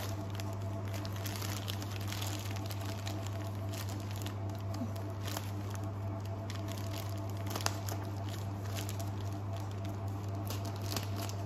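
Scissors snipping through a plastic courier mailer bag, with the plastic crinkling and rustling as it is cut and pulled open, over a steady low hum; one sharper click comes about two-thirds of the way through.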